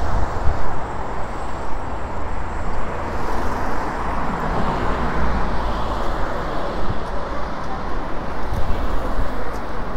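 Steady city street traffic: cars running past in a continuous roar of engines and tyres.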